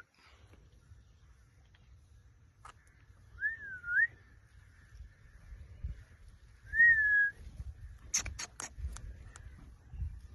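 Pet ringneck parrot whistling: two short, clear whistled phrases that dip and rise, then a quick run of sharp high chirps about two seconds before the end.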